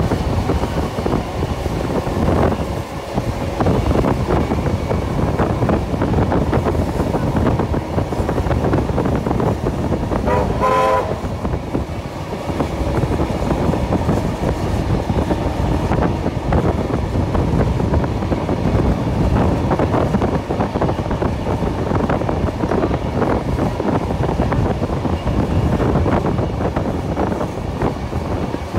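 Beyer-Garratt steam locomotive 6029 working hard at speed: fast exhaust beats over steady rolling wheel and wind noise, heard from a train running alongside. About ten seconds in, a steam whistle gives one short toot.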